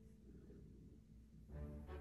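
Soft instrumental background music, very quiet at first, with fuller low notes and chords coming back in about a second and a half in.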